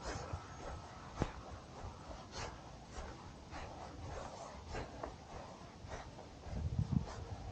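Faint, distant hum of an RC model plane's electric motor in flight, with scattered light clicks; low rumbling wind on the microphone comes in near the end.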